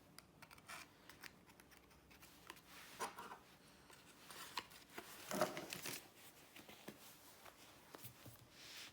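Small items and their packaging being handled: scattered light clicks and rustles, with a louder rustle about five seconds in.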